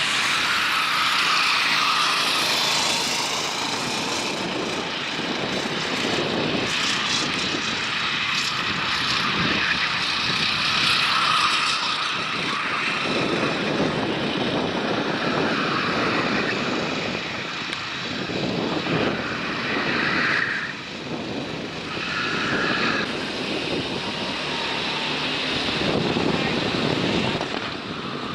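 Racing kart engines buzzing as karts pass, the engine notes rising and falling in pitch and loudness throughout.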